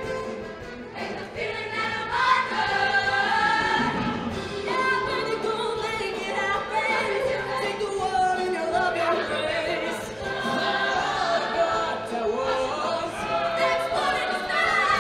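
A large show choir singing in many-voiced harmony.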